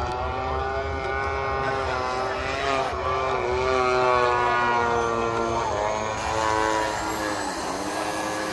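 Propeller engine of a large radio-controlled aerobatic model plane flying overhead, its pitch sliding up and down as the plane manoeuvres and the throttle changes.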